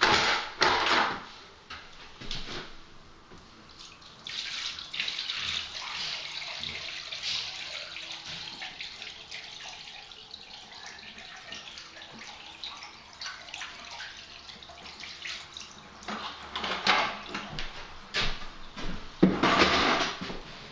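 A bucket of water poured into a newly fitted shower tray and running away down the waste, a test of the waste connection for leaks. A few knocks at the start and again near the end.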